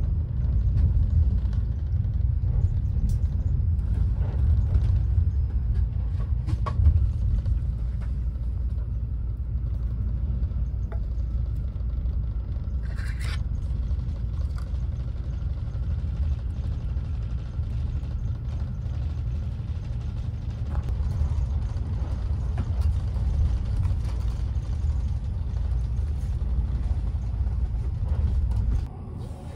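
Steady low rumble of the Kintetsu 80000-series Hinotori electric express train running at speed, heard from inside the passenger cabin. A few faint clicks and a brief higher squeak about a third of the way in, and the rumble drops suddenly near the end.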